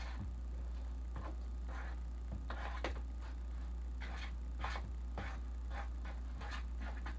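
Spoon stirring banana bread batter in a mixing bowl: a soft swishing scrape with each stroke, roughly every half second to second, over a steady low hum.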